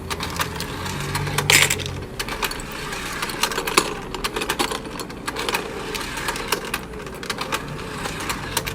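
Battery-powered plastic duck toy running: its small motor hums while the plastic ducks make irregular clicks and clacks as they are carried up the staircase and around the magnetic pond.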